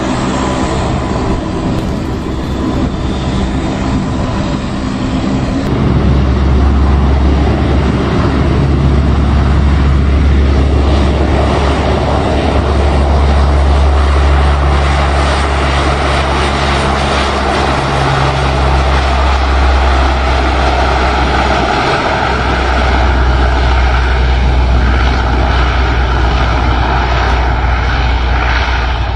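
Four turboprop engines of a Lockheed P-3 Orion running loud and steady, the drone growing heavier and deeper about six seconds in as they come up to high power for the takeoff roll.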